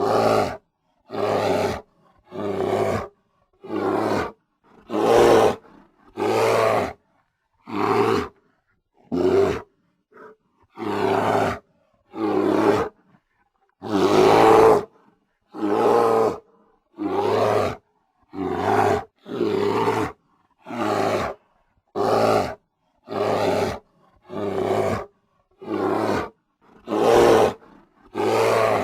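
Grizzly bear roaring in a rapid series of short roars, about twenty of them, one every second or so, each cut off cleanly with silence between; the longest comes about halfway through.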